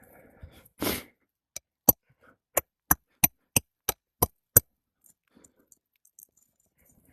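Hammer driving roofing nails into an asphalt shingle: eight sharp strikes, about three a second, after a short rush of noise about a second in.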